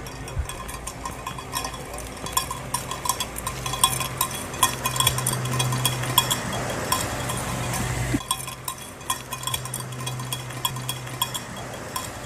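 Rapid, irregular metallic clinking like a small bell, over a steady low hum that changes abruptly about eight seconds in.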